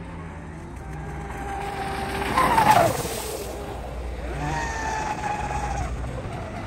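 Blackjack 42-inch 8S brushless RC catamaran speeding past close by: a high electric motor whine with a rush of water spray, its pitch dropping sharply as it goes by about two and a half seconds in. The whine then holds steady and falls away again near the end as the boat runs off.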